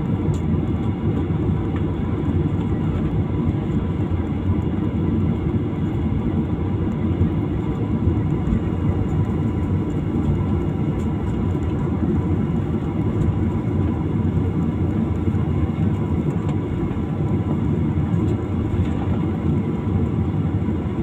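Airliner engine and cabin noise heard from inside the passenger cabin: a steady low rumble with faint steady whining tones above it, unchanging throughout.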